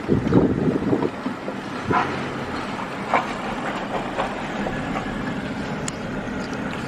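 Steady road and engine noise inside a moving car's cabin, with a few brief knocks about two, three and four seconds in.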